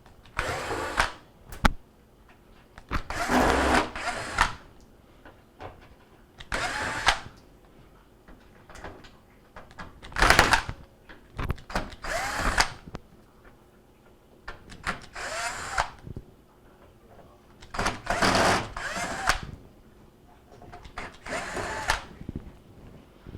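A power screwdriver backing Phillips screws out of a microwave's outer shell, in about eight short runs of half a second to a second each, with pauses between them as it moves from screw to screw.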